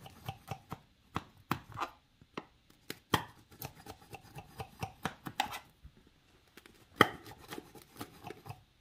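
Knife cutting through the buttered phyllo layers of an unbaked baklava: a run of short, irregular crackles and clicks, with louder clicks about three and seven seconds in.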